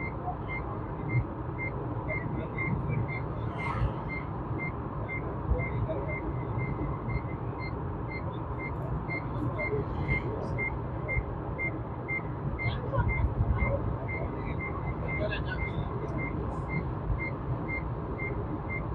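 Inside a moving vehicle: steady low road and engine rumble, with a short high electronic beep repeating about twice a second throughout, like a dashboard warning chime.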